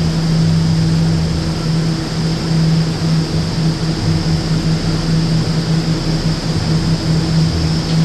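New York City Subway R179 car's HVAC (air-conditioning) unit running steadily: a constant low hum with a fainter note above it, over an even rush of air.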